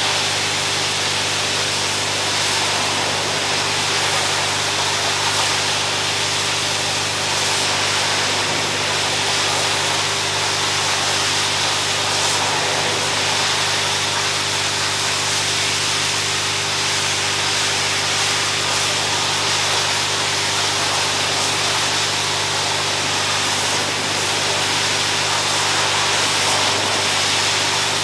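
Pressure washer running steadily: a constant motor hum under the hiss of its water jet spraying onto a shampooed rug.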